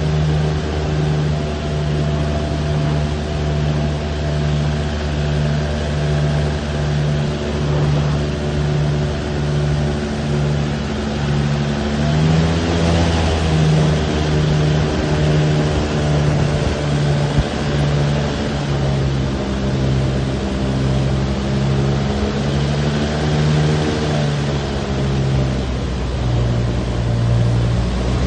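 Airboat engine and propeller running steadily under way, with an even throb about once a second. The engine speeds up about twelve seconds in and slows again near the end.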